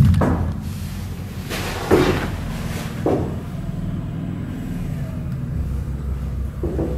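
A steady low hum with a few hollow thumps or knocks at irregular intervals, the loudest right at the start.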